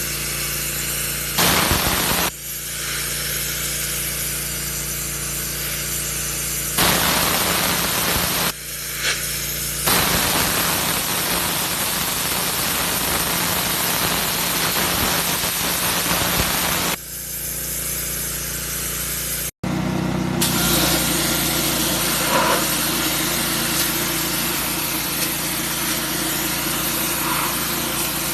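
Pressure washer running, its motor humming steadily while the spray jet starts and stops in bursts: a short blast, a longer one, then one of about seven seconds. After an abrupt cut the washer runs on with a steady spray.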